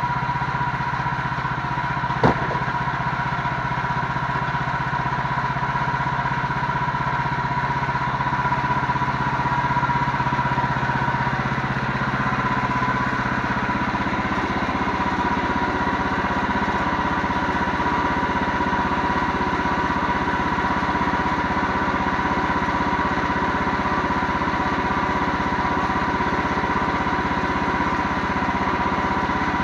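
An engine running steadily with a steady high whine over it, a single sharp click about two seconds in, and a slight shift in its low hum about twelve seconds in.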